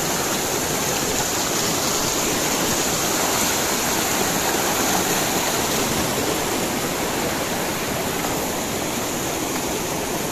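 Fast-flowing river rapids: water rushing over and between rocks, a steady, even noise with no let-up.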